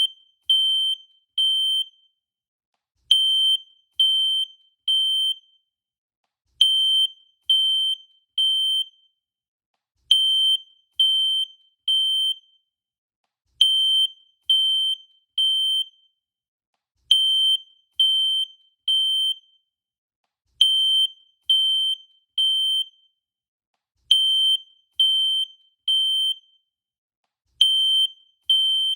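Fire alarm sounding a high-pitched beep in groups of three, each group repeating about every three and a half seconds. This is the temporal-three pattern, the standard fire evacuation signal.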